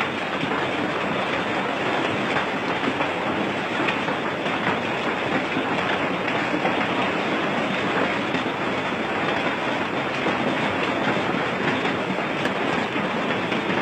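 Hailstorm: hailstones pelting the ground and leaves in a dense, steady clatter of countless tiny impacts.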